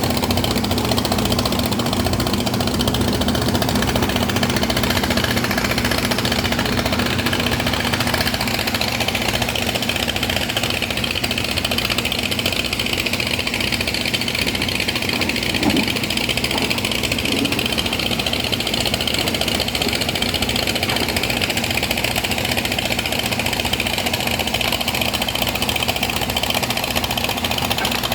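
Excavator's diesel engine running steadily, with one short knock a little past halfway.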